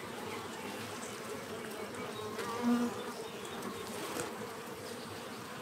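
Honey bees buzzing steadily around an open hive as a frame crowded with bees is lifted out. One buzz swells briefly louder about halfway through.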